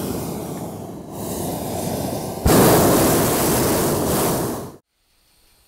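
A hot air balloon being inflated: a loud, steady rushing roar that jumps louder with a low thump about two and a half seconds in, then cuts off abruptly near the end.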